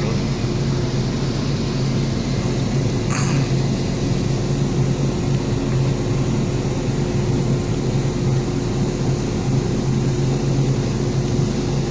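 Ship's engine running with a steady drone, mixed with strong wind buffeting the microphone.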